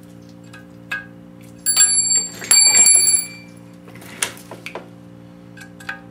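Metal engine parts being handled: two loud, bright, ringing metallic clinks about two seconds in, then a few light clicks, over a steady low hum.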